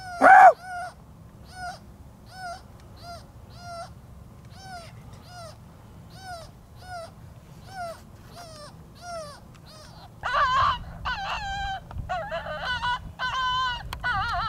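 Electronic predator caller (FoxPro X24) playing animal calls: one short pitched call repeated very evenly about every three-quarters of a second, after one loud call near the start. About ten seconds in, a louder run of overlapping, wavering yips and howls begins.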